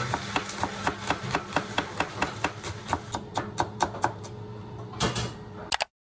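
Rapid, evenly spaced knocks, about four a second, over a steady low hum; everything cuts off abruptly near the end.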